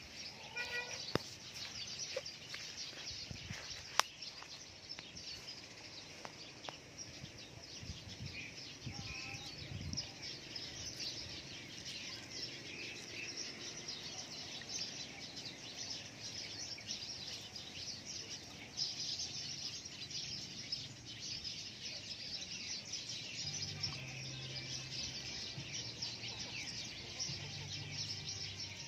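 Birds chirping over a steady high outdoor hiss, with a couple of sharp clinks against a stone mortar in the first few seconds.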